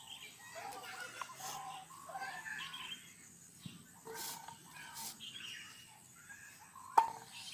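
Bottle gourd being cut by hand against a boti, a fixed upright blade. There are a few short cutting sounds and one sharp click a little before the end. Birds chirp in the background.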